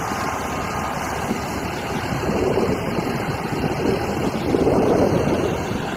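Wind buffeting the microphone over the steady wash of surf, with gusts swelling louder about halfway through and again near the end.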